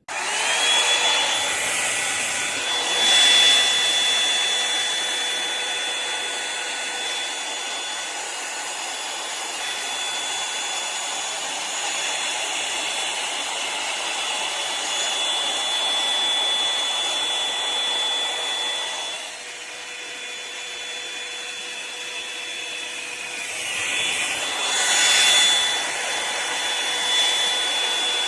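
Revlon One-Step Volumizer hot-air brush switched on and running: a motor whine over a steady rush of air, starting abruptly and settling into pitch within a moment. It drops a little in level about two-thirds in and swells briefly near the end.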